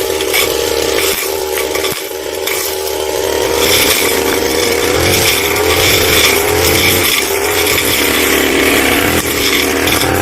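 Brush cutter engine running at high speed as its blade cuts through grass and palm fronds; the engine dips briefly about two seconds in, then picks up again.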